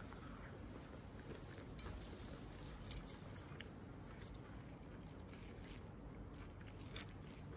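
Knife and fork clinking against a plate twice while food is cut, once about three seconds in and once near the end, over a faint low steady background noise.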